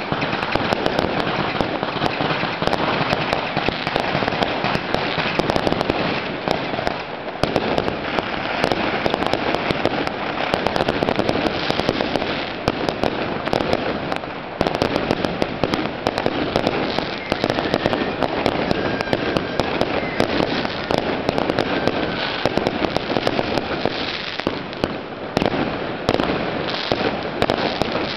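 Fireworks going off in a dense, continuous barrage of crackling and popping, many small bangs overlapping with no break.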